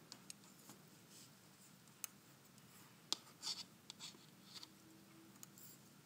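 Faint, irregular clicks of knitting needles and light scratching of yarn as stitches are purled.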